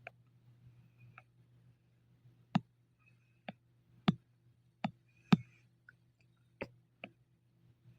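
Irregular, sharp clicks from computer input while drawing, about ten in eight seconds, the loudest near the middle, over a faint steady low hum.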